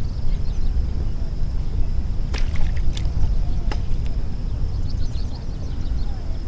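Steady low rumble of wind on the microphone at the lake edge. Between about two and four seconds in come a few short, sharp splashes from a carp being handled in a landing net in the shallow water.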